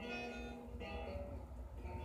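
Background music: a melody of held notes over a steady low bass.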